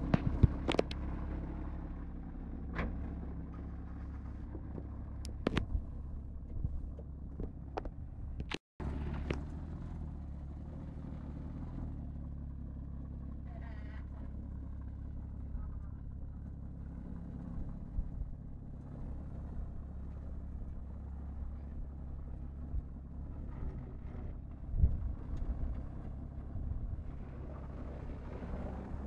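Porsche Cayman S's flat-six engine idling steadily at a constant, low pitch, with a few sharp clicks and a louder knock near the end.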